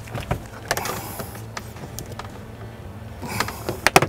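Plastic lower dash trim panel of a Jeep Gladiator JT being yanked off, its retaining clips snapping loose in a series of sharp clicks, the loudest pair near the end.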